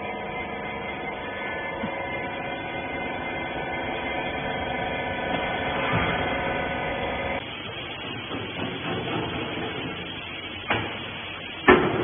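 Steady mechanical hum of a hydraulic rag baler's motor and pump running, which cuts off suddenly about seven seconds in. Machine clatter follows, with two sharp knocks near the end.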